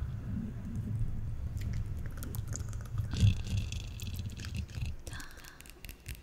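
Close-miked ASMR mouth sounds: soft, wet mouth clicks over a low rumble from hands moving near the microphone.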